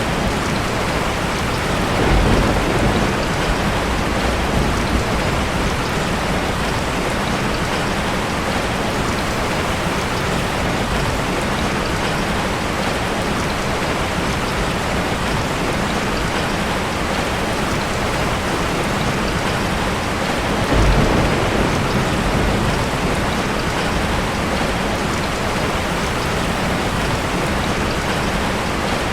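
Steady heavy rain, with a low rumble of thunder about two seconds in and another about twenty seconds in.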